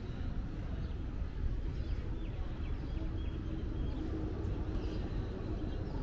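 Outdoor ambience of a walk: a steady low rumble, with a few faint bird chirps and a low engine hum that comes in about halfway through.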